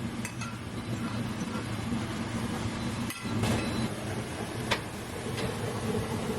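Steady low hum of a kitchen appliance fan running, with a few light clicks about three and five seconds in.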